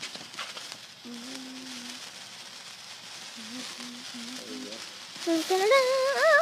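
Steady fizzing hiss of a lit sparkler. About five seconds in, a child's voice starts vocalising with a wavering pitch.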